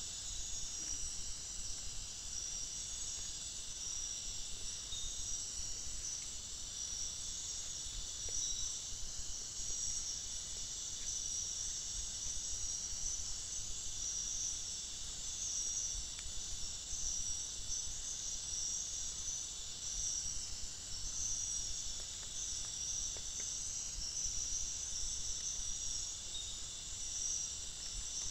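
Steady high-pitched chorus of night insects, with a pulsing, shimmering layer over a continuous drone.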